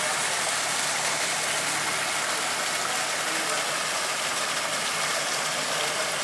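Steady rushing hiss with no distinct events.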